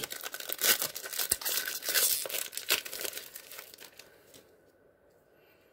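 Foil wrapper of a 2017 Score football card pack crinkling and tearing as it is opened and the cards are pulled out. It dies away about four seconds in.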